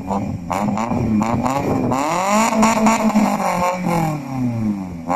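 Maruti Suzuki Zen engine breathing through an aftermarket custom exhaust, revved up and down several times so that the exhaust note repeatedly rises and falls in pitch.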